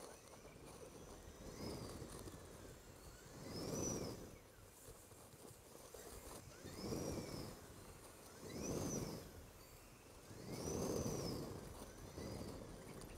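Zero SR electric motorcycle's motor whining up and down in pitch several times as it speeds up and slows at a crawl through a parking garage. A swell of tyre and air noise comes with each burst of speed, and the whole sound is faint.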